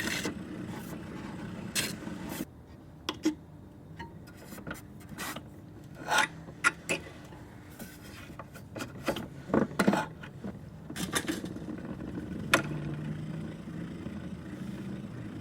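Irregular clicks, taps and short rasping scrapes, a dozen or so spread unevenly, over a faint steady hiss.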